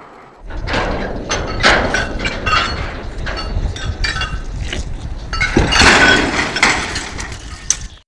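Steel lattice transmission towers crashing down: a run of sharp metal clanks and crashes over a steady low rumble, cutting off abruptly near the end.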